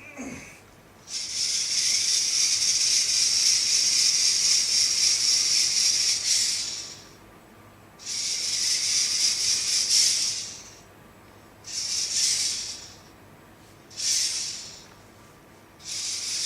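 VEX IQ robot's drive motors and plastic gearing whirring in separate runs as it drives itself in autopilot mode. There is one long run of about six seconds, then shorter runs of about two and a half seconds, one second and under a second, with stops between them, and it starts up again near the end. The builders take the stops for the robot sensing the wall and turning.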